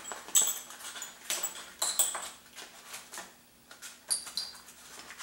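Light, irregular metallic clinks and rattles of small steel parts and tools being handled, some ringing briefly, over a faint steady hum.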